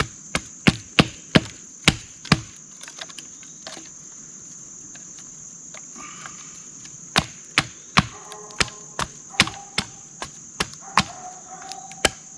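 Steady high-pitched insect drone, with sharp cracks and knocks over it in quick runs, about three a second in the first couple of seconds and again from about seven seconds on.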